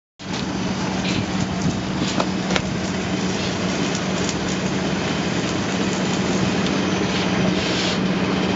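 Winch running steadily as it pulls a steel cable strand into a cable-stayed bridge stay's guide pipe: a constant mechanical hum with rattling, and a couple of sharp clicks a little over two seconds in.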